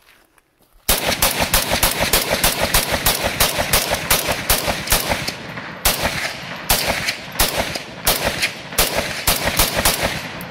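Century Arms C39V2, a semi-automatic AK-pattern rifle in 7.62×39, fired rapidly in a long string of single shots. The shots come about three a second, starting about a second in, with a short pause about halfway through.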